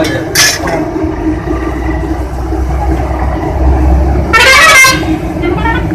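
Street traffic: a vehicle engine rumbles past, and a horn sounds briefly about four and a half seconds in.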